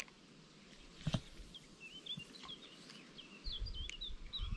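A small songbird sings a run of short, quick high chirps. There is a single sharp knock about a second in and a low rumble near the end.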